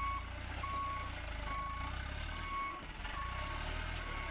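Dump truck's reversing alarm beeping, short single-tone beeps a little more than once a second, over the low steady running of the truck's engine as it backs up.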